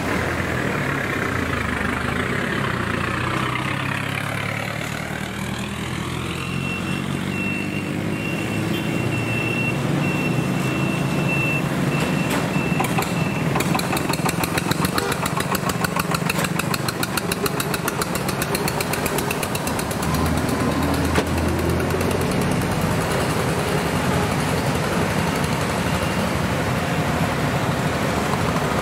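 Street traffic with engines passing: motorcycle-tricycles and a truck, then a small farm tractor chugging through with a rapid, even knocking for several seconds mid-way. A steady high-pitched tone runs for several seconds before the knocking starts.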